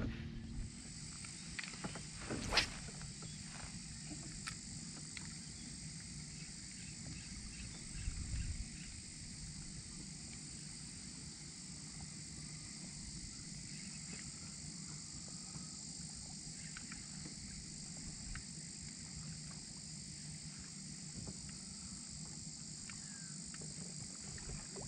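Steady high-pitched insect drone, with a sharp click about two and a half seconds in and a dull knock about eight seconds in.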